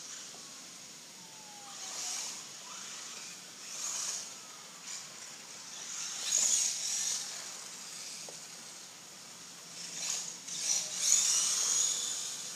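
Traxxas 1/16 Slash VXL RC truck's brushless motor whining, rising and falling in pitch as it speeds up and slows, with bursts of hissing spray from its tyres on wet pavement. It is loudest twice, about six and eleven seconds in.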